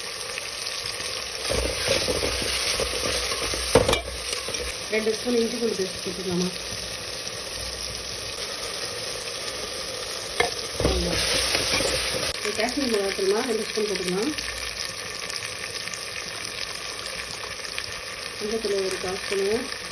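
Onion-tomato masala sizzling steadily in hot oil in a metal pot as it is stirred with a steel ladle, with a few sharp knocks of the ladle against the pot.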